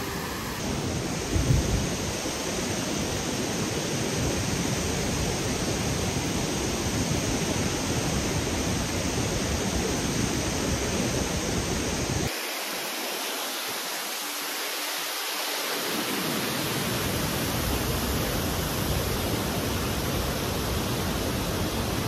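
Steady rushing of Fukiware Falls, a wide horseshoe-shaped curtain waterfall, pouring over its rock ledge close by, with a short low bump about a second and a half in.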